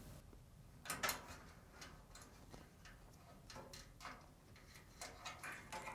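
Faint, scattered light clicks and rustling as a wire and its small plastic connector are handled and pulled through an opening in the dryer's panel.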